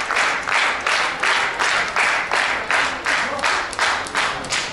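Audience clapping together in rhythm, a steady beat of about two to three claps a second that stops near the end.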